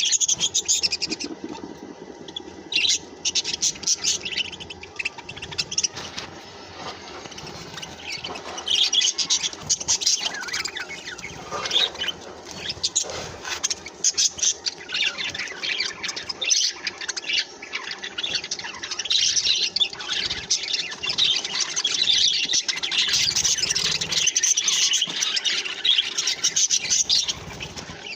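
Several budgerigars chirping and chattering, in busy bursts that come and go, quieter for a few seconds near the start and busiest in the second half.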